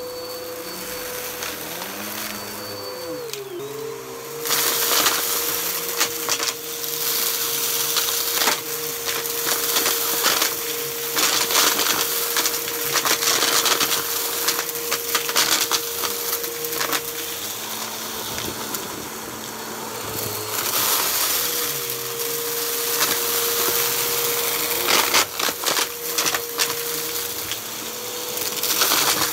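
Bissell bagless upright vacuum cleaner running on carpet, its motor a steady whine that dips briefly in pitch now and then. From about four seconds in comes dense crackling and crunching as the brushroll sucks up piles of hair, lint and paper bits.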